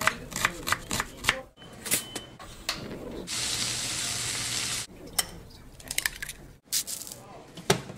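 Kitchen knife chopping onion on a cutting board, about four quick chops a second. Then bacon strips sizzling in a frying pan for about a second and a half, followed by scattered clicks and taps as an egg is cracked into a steel bowl, with a sharp tap near the end.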